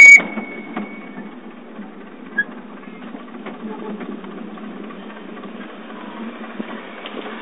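Miniature ride-on railway carriage running along the track: a steady rattle of wheels on rails with occasional faint clicks. A very loud, brief high-pitched toot sounds right at the start.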